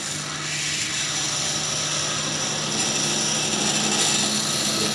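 Metal lathe running while a 6.8 mm tapping drill cuts into a stainless steel workpiece: a steady hum under a loud high hiss.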